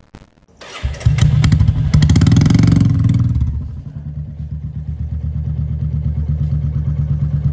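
Royal Enfield Bullet single-cylinder motorcycle engine running through a loud shot-bottle exhaust. It comes in about a second in, is revved hard for about two and a half seconds, then settles into a steady thumping beat.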